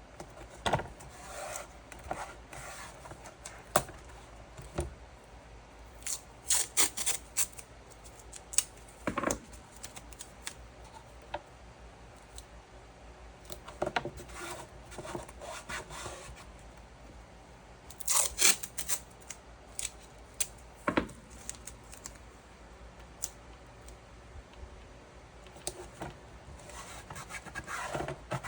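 Hand work on small materials: intermittent rubbing and scraping with sharp clicks, in clusters with short quiet gaps between.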